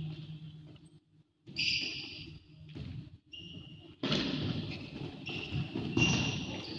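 Futsal ball being kicked and bouncing on the sports-hall floor, thuds echoing around the hall, with a few brief high squeaks. The sound drops out almost completely for a moment about a second in.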